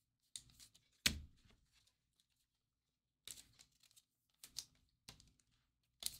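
Faint rustling and crinkling of baseball cards and a clear plastic card sleeve being handled, in several short bursts, the loudest about a second in.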